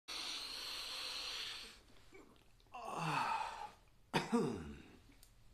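A man sniffing hard through the nose for about a second and a half, miming snorting a line of cocaine, then two voiced breaths out. The second of these starts suddenly and falls in pitch.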